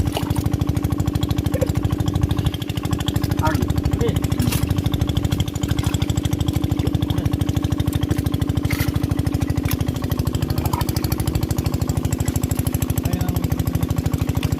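A small engine running steadily with a fast, even chugging rhythm.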